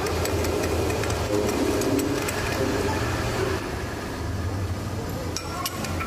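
Metal lathe running with a steady motor hum, louder in the first half, with a few sharp clicks near the end.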